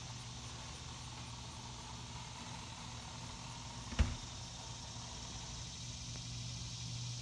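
Steady low hum of an engine or motor running, with high hiss over it and a single sharp click about four seconds in.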